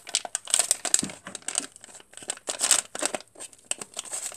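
Foil-plastic blind-bag wrapper crinkling as it is handled, in many irregular short bursts.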